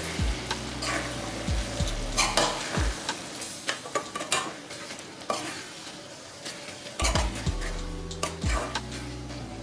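A steel spoon stirring a sizzling mixture of Malabar spinach leaves, tomato and spice masala in a metal kadai, with irregular scrapes and clicks against the pan. The stirring eases for a couple of seconds past the middle, then picks up again.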